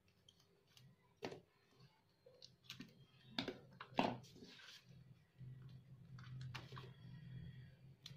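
Scissors snipping decorative adhesive tape and being handled on a tabletop: a few scattered sharp clicks, the loudest about four seconds in. A low hum comes in about halfway.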